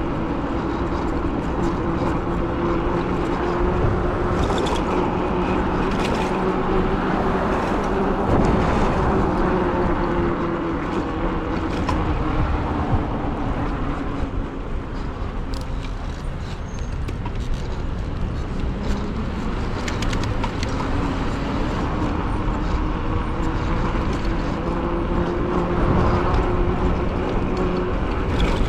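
E-bike hub motor whining steadily while riding, its pitch dipping in the middle and rising again near the end as speed changes, over constant wind and road noise.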